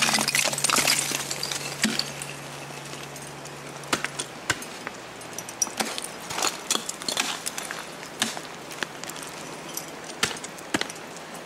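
Clinks and clicks of ice-climbing gear being handled: an umbilical tool leash and its clip knocking against the shaft and head of an ice axe. A dense patch of rustling and clicking in the first two seconds, then scattered sharp clicks.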